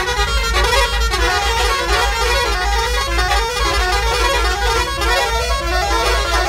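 Loud music with a steady, pulsing bass beat under a busy melody.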